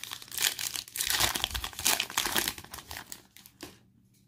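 Foil wrapper of a Panini Illusions football card pack being torn open and crinkled by hand. The crinkling stops a little before the end, leaving only faint ticks.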